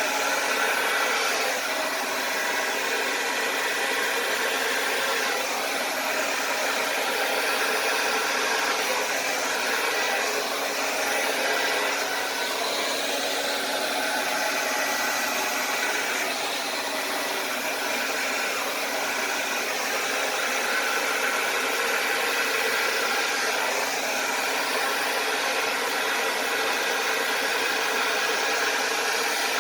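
Hair dryer running steadily, blowing fluid acrylic paint across a canvas.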